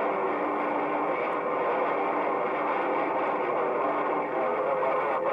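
CB radio receiver on 27.265 MHz (channel 26) hissing with band noise from skip conditions, with faint, distorted distant stations buried in the static and no clear voice coming through.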